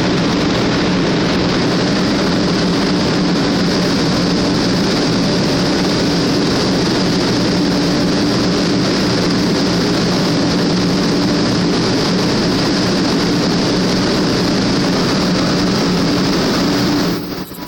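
Sanyo Shinkansen train running at high speed: a loud, steady rush of noise with a constant low hum, cutting off suddenly near the end.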